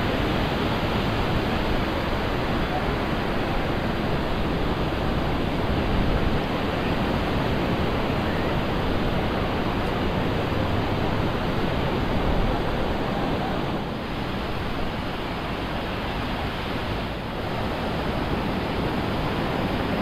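Surf washing onto a sandy beach: a steady, even rush of breaking waves.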